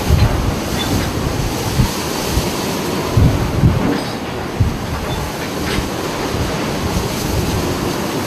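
Storm wind and heavy seas: a loud, steady roar of wind and breaking waves, with irregular low buffeting.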